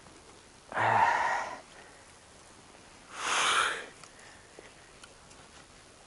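A person breathing out hard twice, about a second in and again about three seconds in, from the exertion of handling heavy branches.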